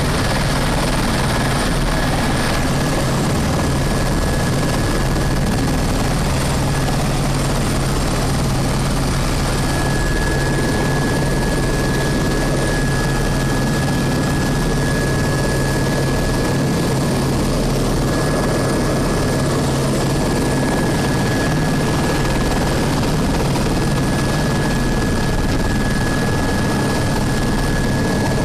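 Helicopter's turbine engine and rotor running steadily on the ground, heard from inside the cabin: a constant drone with a thin steady high whine over it.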